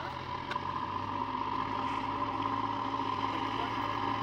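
Engine of a heavy earth-moving machine running steadily, a constant high whine over a low hum.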